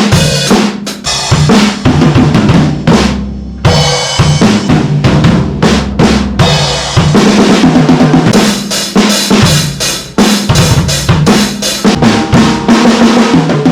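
Yamaha DP series drum kit played continuously: bass drum, snare, rimshots and cymbals in quick succession, with a brief break in the cymbal and snare hits about three and a half seconds in.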